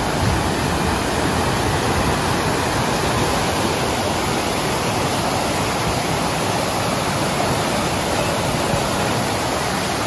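River water cascading over a weir in a steady, loud rush of white water.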